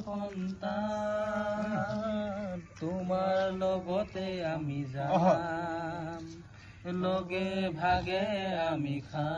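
A man singing unaccompanied, in phrases of long held notes with a wavering pitch, broken by short pauses.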